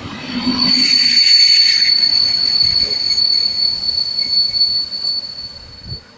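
Wheels of a Polregio regional passenger train squealing as the coaches roll along the platform: one steady, high-pitched screech that sets in about a second in and holds for about five seconds, over the rumble of wheels on rail.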